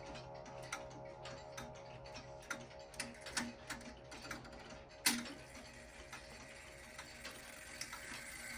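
Early Mauthe German grandfather clock movement ticking, a run of light clicks with a sharper one about five seconds in, over a faint steady ringing hum that fades away in the first half.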